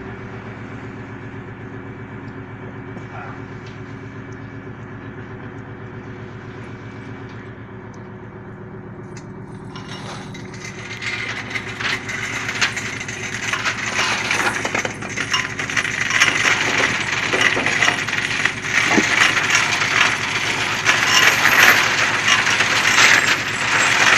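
A fishing trawler's engine running steadily. About ten seconds in, a loud clattering rattle full of sharp clicks and cracks starts, builds, and cuts off suddenly at the end.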